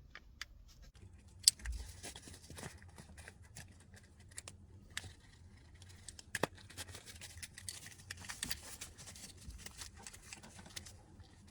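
Hands working a gear-stick gaiter off its gear knob: scattered light plastic clicks with scratching and rustling, and a sharper click about a second and a half in.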